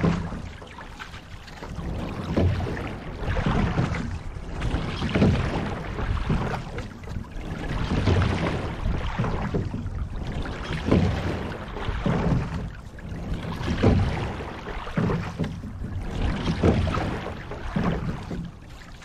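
Rowing shell being sculled, water rushing along the hull. The sound swells in a regular rhythm about every three seconds, once with each stroke.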